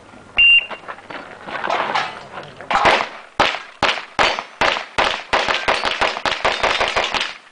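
Shot timer's start beep about half a second in, then a rapid string of pistol shots from about three seconds in, several a second, as a practical-shooting (IPSC-style) stage is shot; the shooting stops about seven seconds in.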